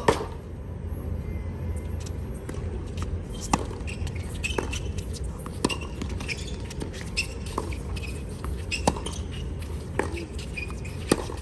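Tennis ball struck back and forth in a doubles rally: sharp racket hits and ball bounces about once a second, over a steady low background hum.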